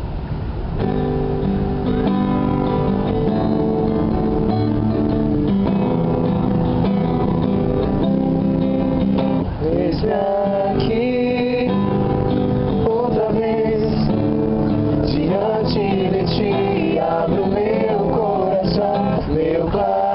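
Acoustic guitar strumming chords, joined about ten seconds in by a small group of voices singing a worship song together.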